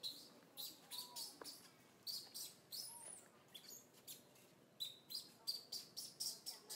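Infant long-tailed macaque crying: a rapid run of short, high-pitched squeaks and squeals, with a few softer rising-and-falling coo calls, coming thicker in the last couple of seconds.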